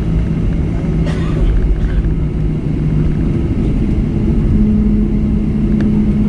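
Boeing 737-300's CFM56 jet engines heard from inside the cabin as a steady low rumble and drone while the aircraft rolls on the ground. The drone's pitch steps up and it grows a little louder about four and a half seconds in, with a brief rattle about a second in.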